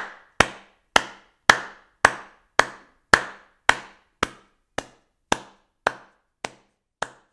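A steady run of sharp knocks, a little under two a second, each ringing briefly and dying away, the strikes growing fainter in the second half.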